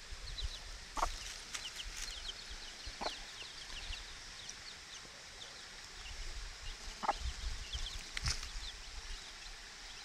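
Mother hen clucking a few times, single short low clucks, while her week-old chicks peep continuously in quick, high, falling notes as they forage for worms.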